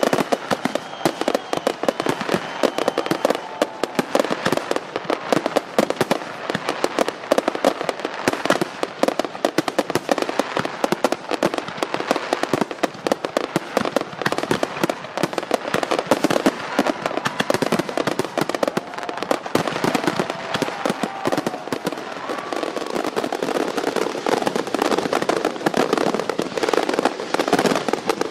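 Fireworks display: a dense, unbroken run of bursting shells and crackling bangs, many per second.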